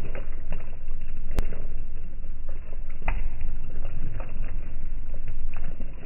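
LG top-loading washing machine churning a load of clothes in its tub: a steady low rumble with irregular knocks and one sharp click about a second and a half in.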